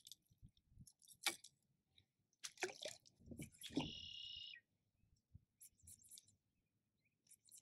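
Faint clicks and rattles of a fishing rod and baitcasting reel being handled. A cluster of rattles comes about a third of the way in, followed by a short high chirp lasting under a second.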